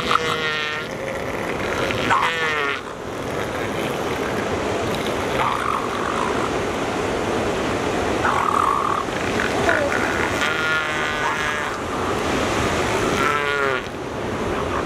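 Northern elephant seals calling from the beach: several loud croaking calls, some falling in pitch, with shorter cries between them, over steady surf.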